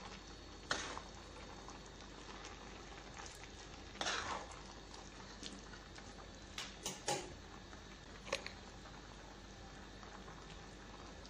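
A spoon stirring and mixing mashed tapioca and chicken masala in a cooking pot: soft squelching scrapes and a scattering of short knocks of the spoon against the pot, several of them bunched together about two-thirds of the way through, over a faint steady hiss.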